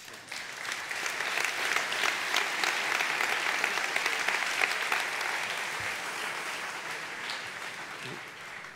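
Audience applauding, building up within the first second and slowly dying away toward the end.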